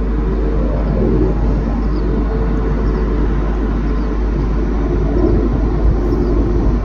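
Steady low rumble of a Boeing 767's jet engines climbing out just after takeoff.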